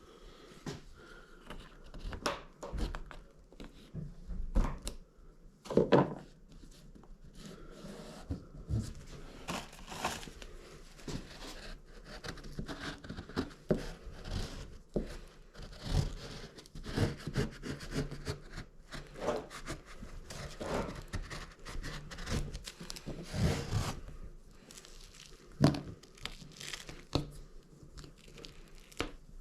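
Irregular crinkling, rubbing and tearing of vinyl being handled and pressed down onto a glue-coated fiberboard door panel, with scattered light knocks.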